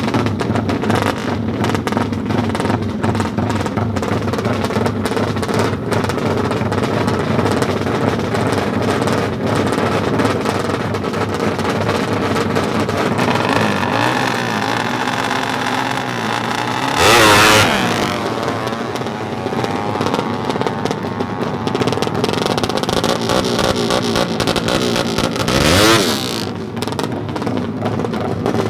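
Yamaha RX-King drag bike's two-stroke single-cylinder engine running at a choppy idle, likened to a helicopter. It is revved sharply twice, about halfway through and near the end, and the pitch falls back after each rev.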